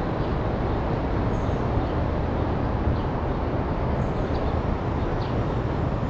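Steady low rumble of city traffic outdoors, with a few faint, short high chirps.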